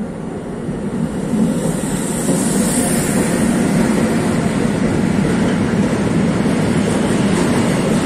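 A train running through the station: a steady rumble and hiss of wheels on rails that grows louder over the first two seconds, then holds.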